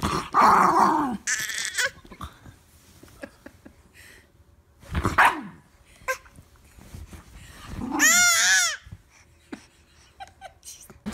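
A dog barking a few times with pauses between, the last call about eight seconds in a high yelp that rises and falls.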